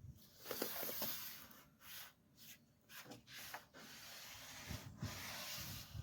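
Several rubbing, scraping strokes on wood, separate at first and then more continuous in the last couple of seconds.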